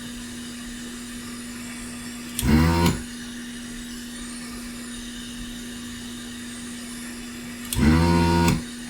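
A small blower fan on the repair bench runs steadily with a low hum and a hiss. Two short wordless voice sounds break in, one about two and a half seconds in and one near the end.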